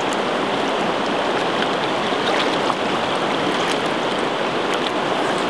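Shallow, rocky river rushing steadily over a riffle.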